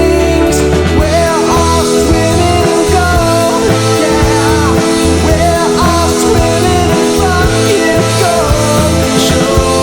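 Psychedelic rock song playing, with guitar, a low bass line and a wavering, bending lead melody over it.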